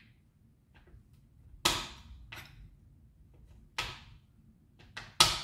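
Kitchen knife chopping a bar of dark chocolate into small pieces on a cutting board: about five sharp, irregular knocks as the blade cracks through the chocolate and strikes the board, the loudest about a second and a half in and near the end.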